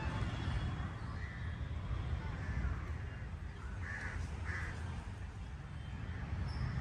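Crows cawing, two loud caws about half a second apart roughly two-thirds of the way through, with fainter caws earlier, over a steady low rumble.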